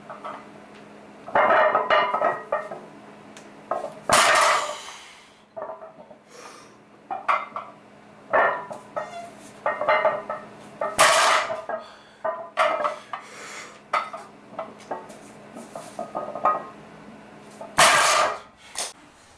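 Irregular clinking and clattering of hard objects being handled, with three louder clatters spread through it and a steady low hum beneath that stops near the end.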